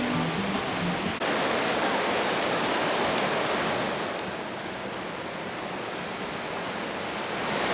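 River whitewater rapids rushing steadily. The sound starts abruptly a little over a second in and is softer for a few seconds in the middle.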